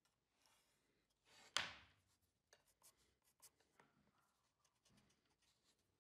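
Near silence, with faint small ticks and scratches of pencil and square layout work on plywood, and one short sharp tap about a second and a half in.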